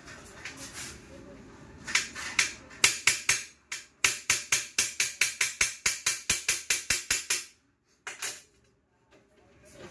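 Sharp, ringing taps on a sheet of glass. A few come about two seconds in, then a fast, even run of about five taps a second follows, and it stops abruptly about seven and a half seconds in. One last tap comes near eight seconds.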